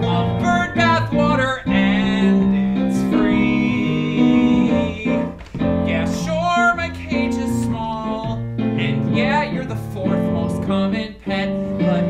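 Musical-theatre song accompaniment playing an instrumental passage between sung lines, with a melody moving over steady chords.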